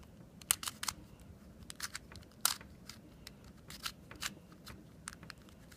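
A mini Rubik's cube being turned by hand, its plastic layers clicking in short, uneven snaps about twice a second as it is solved.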